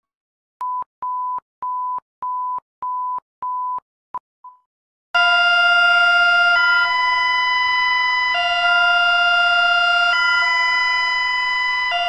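A run of short identical beeps, about two a second, then an emergency alert tone: several steady tones sounded together, loud, switching back and forth between two chords about every one and a half to two seconds. The alert tone is the one presented as Bulgaria's public warning alarm.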